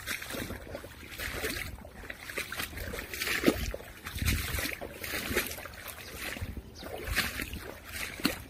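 Footsteps in wet mud and shallow puddles, sloshing and splashing at about a step a second, the loudest about three and a half seconds in.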